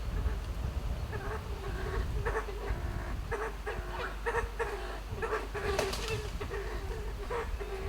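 Kalij pheasant calling from its roosting tree: a trilling, clicking series of short notes, about three a second, starting about a second in and running on without a break.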